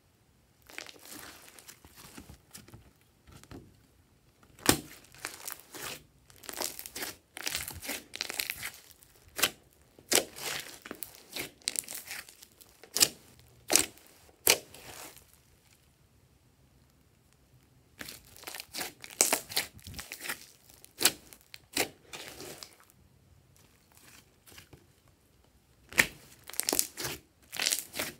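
Hands kneading, stretching and poking a large mound of mixed pink and blue glossy slime: sticky crackling with sharp pops of trapped air, in irregular bursts broken by two quiet pauses.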